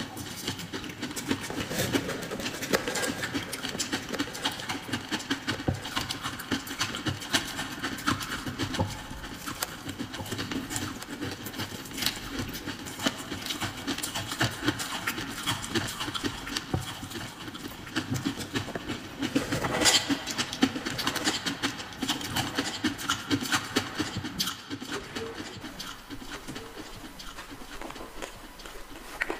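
Ice crunching as it is chewed close to the microphone: a dense run of crisp crackles and crunches, loudest about twenty seconds in.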